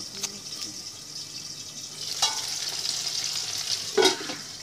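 Fish frying in oil in a steel kadai, a steady sizzle that grows louder from about halfway. The steel lid clanks against the pan twice, the second knock near the end the loudest.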